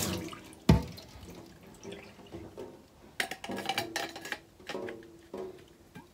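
Ceramic water-filter candles and their plastic mounting plate being handled and screwed together over a sink: one sharp knock a little under a second in, then scattered clicks and rubbing of the parts.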